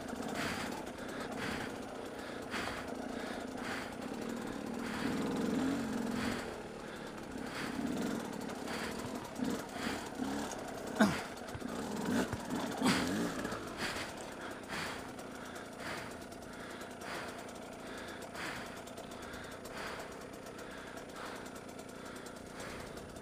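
Dirt bike engine at low speed over rough rock, its revs rising and falling in short throttle blips, with a sharp knock about 11 seconds in. Quieter, steadier running near the end.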